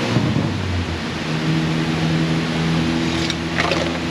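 An engine running steadily with a low hum over a background hiss, its tone shifting about a second in.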